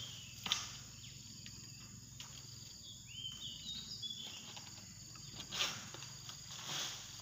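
Steady high buzz of insects in a palm plantation, with a short run of chirping bird notes about three seconds in and a couple of faint knocks.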